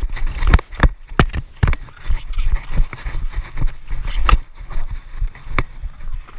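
Irregular sharp clacks of hockey sticks and ball striking the plastic dek hockey court tiles and each other during play, several in quick succession in the first second and single louder ones later, over a low rumble.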